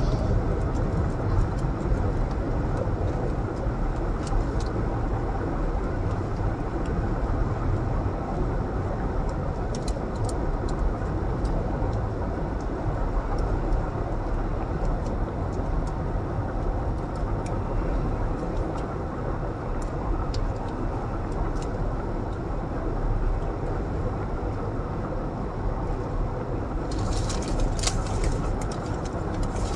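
Steady low rumble of a car idling, heard inside the cabin. A few light crinkles and clicks come near the end.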